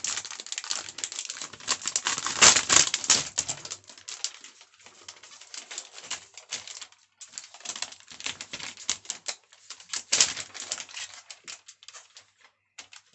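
Thin plastic film packaging on Lego road plates being torn open and pulled off, crinkling and rustling densely for the first few seconds, then in sparser crackles.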